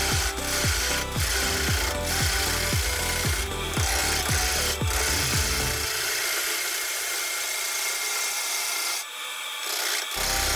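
Bowl gouge cutting the inside of a spalted hickory cup blank spinning on a wood lathe: a steady scraping hiss as shavings come off, easing briefly about nine seconds in.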